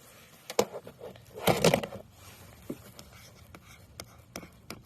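Handling noise of small objects: a few sharp clicks and a short scraping rustle about a second and a half in.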